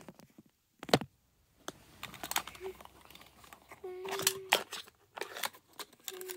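Plastic toy parts clicking and knocking as small toy trash carts are handled and tipped at a toy garbage truck's hopper, with rustling handling noise. A short steady hum sounds at about four seconds and again near the end.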